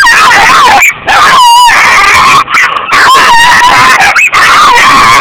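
Small black dog giving loud, high, wavering cries in near-continuous bouts with brief breaks between them: its protest at hands trying to pick it up.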